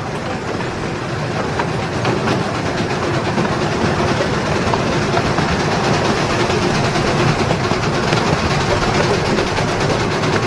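Tinkerbell-class miniature steam locomotive running with its train, a steady rattling clatter of the engine and the wheels on the track, growing a little louder about two seconds in.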